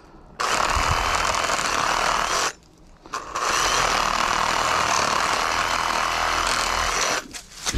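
Electric power saw cutting through wood in two runs, about two seconds and then about four seconds, with a short pause between.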